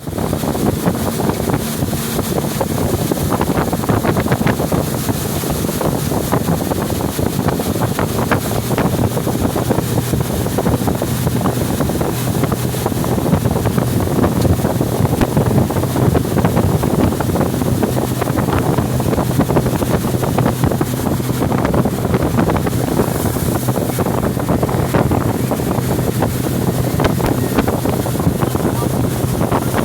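Motorboat engine running steadily with a constant low hum, with wind noise on the microphone.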